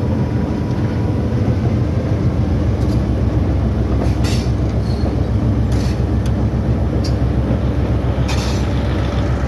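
Moving train heard from on board: a diesel locomotive's steady low engine rumble, with four short hissing noises over it.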